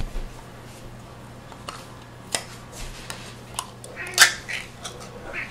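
A few light clicks and taps of things being handled in a kitchen, the sharpest about four seconds in, over a steady low hum.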